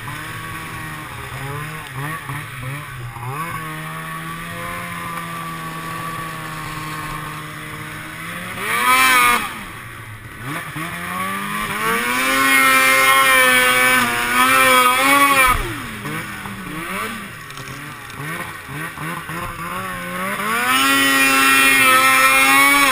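Polaris 800 Switchback Dragon snowmobile's two-stroke engine running under throttle. It holds steady at first, revs up hard about nine seconds in and eases off, then climbs to wavering high revs. It drops back, then rises again and holds high near the end.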